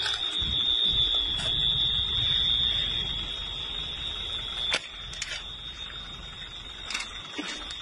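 A steady high-pitched alarm tone that runs unbroken over a low rumbling noise, with a few sharp clicks; the sound drops in level about five seconds in.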